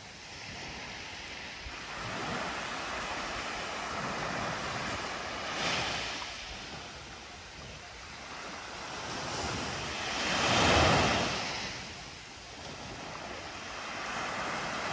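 Sea waves washing onto the beach, a rushing sound that swells and fades as each wave comes in, with the biggest swell about ten seconds in. Wind buffets the microphone.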